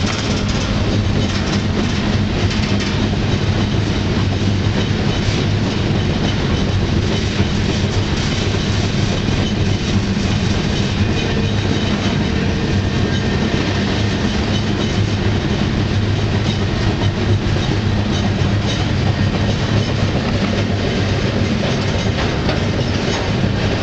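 Canadian Pacific freight train rolling along, heard from on board: a steady loud rumble with a low hum, and frequent clicks and knocks of the wheels on the rails.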